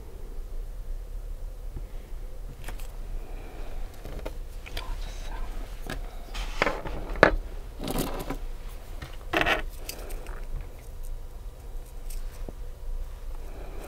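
Nail-care tools being handled and worked on fingernails: irregular light clicks, taps and short scrapes, with a sharper click about seven seconds in.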